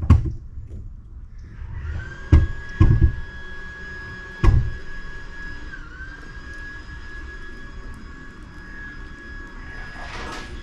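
A few dull thumps, then from about two seconds in a steady high-pitched whine from a small motor that dips briefly in pitch once midway and runs on steadily.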